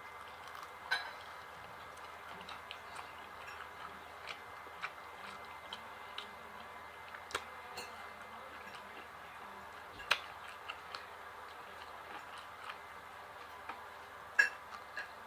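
Eating sounds close to the microphone: scattered, irregular sharp clicks and mouth smacks from biting and chewing fried chicken.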